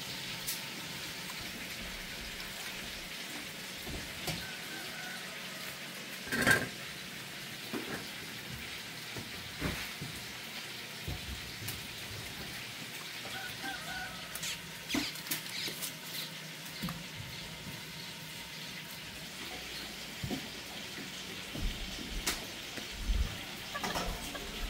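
Pork ribs and shanks frying in hot fat, a steady sizzle, with scattered knocks and clatter. The loudest knock comes about six seconds in.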